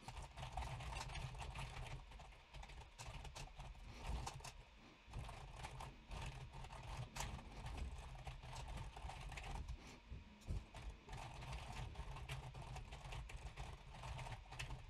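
Computer keyboard typing: a faint, quick, irregular patter of keystrokes with a couple of short pauses, over a low steady hum.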